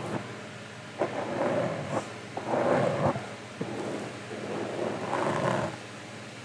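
Close-miked inaudible whispering: breathy, unintelligible phrases in several short spurts, with a few soft mouth clicks.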